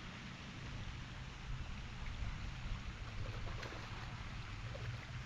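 Steady outdoor background noise: a low rumble under an even hiss, with a few faint clicks around the middle.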